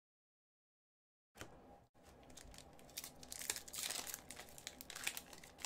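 A hockey card pack's wrapper being torn open and crinkled by gloved hands, with crackling and tearing noises that start about a second and a half in and grow louder toward the middle.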